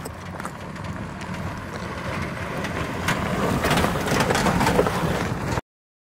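Jeep Gladiator driving over a rocky dirt trail: engine running with the tyres crunching over gravel, growing louder, then cutting off suddenly near the end.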